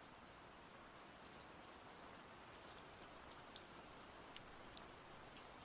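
Soft, steady rain falling, with scattered drops ticking.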